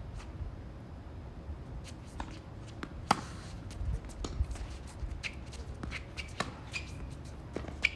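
Irregular light clicks and taps over a low steady hum, with one sharper click about three seconds in.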